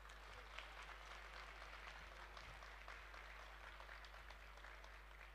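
Faint, distant audience applause, a soft patter of scattered clapping, over a steady low electrical hum from the sound system.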